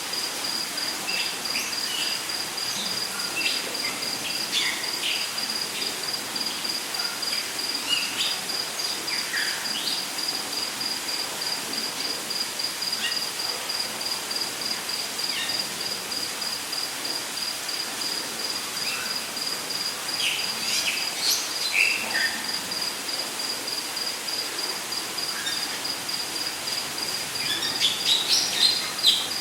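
Rainforest ambience: an insect trilling steadily in a rapid pulse at one high pitch, with scattered short bird chirps and calls over it and a burst of them near the end.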